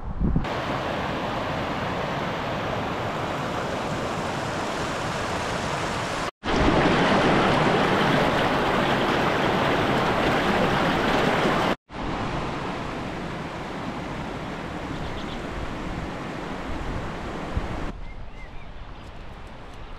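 Steady rushing water, a continuous even roar in three stretches split by two abrupt momentary dropouts, the middle stretch the loudest. Near the end it gives way to a quieter, more distant rush with a few faint clicks.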